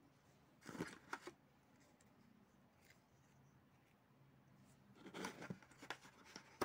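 Faint clicks and taps of small black plastic action-camera mounts being handled: a short cluster about a second in, then a longer run of clicks and taps near the end as a mount is set down on the table.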